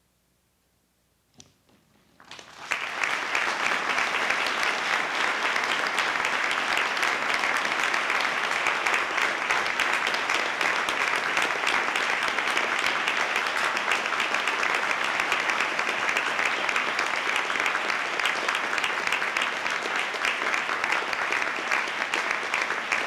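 Near silence for about two seconds, then an audience breaks into applause that holds steady.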